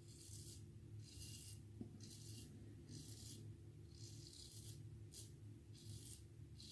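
Feather Artist Club SS razor with a Feather Professional blade scraping stubble on the neck in short strokes, about nine faint scratchy strokes, on an against-the-grain pass. A steady low hum runs underneath.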